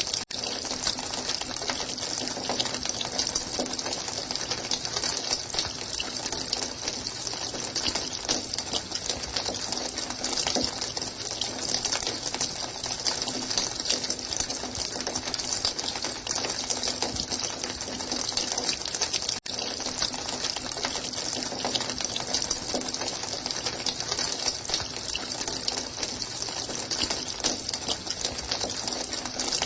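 Running water, a steady continuous flow with fine splashing, broken by two very brief gaps, one right at the start and one about two-thirds of the way through.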